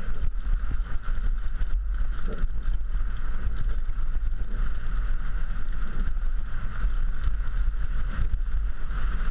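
Downhill mountain bike running fast over a rocky dirt trail, heard from a helmet-mounted camera. Wind rushes on the microphone over the rumble of the tyres, with frequent knocks and rattles as the bike hits stones and roots.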